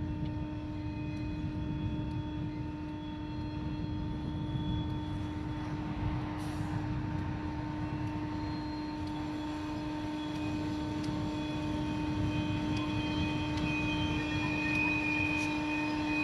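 A large engine or machine running steadily: a constant droning hum over a low rumble, with faint higher whining tones drifting in and out.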